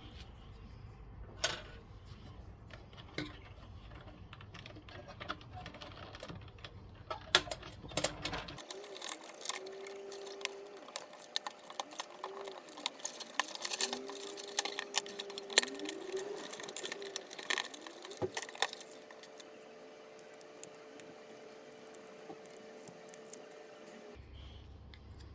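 Metal parts clinking and rattling as scrap is handled, and about a third of the way in a small motor starts whining, its pitch rising and falling several times before holding steady, then stopping shortly before the end.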